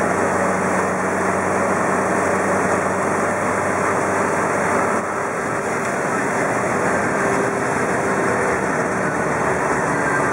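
Car engine running steadily with road noise while driving.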